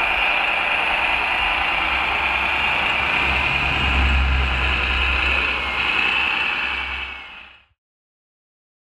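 Radio-controlled scale model MAN tipper truck running: a steady high whine from its drive with slight rises and falls in pitch, over a low engine-like rumble that swells in the middle. It fades out near the end.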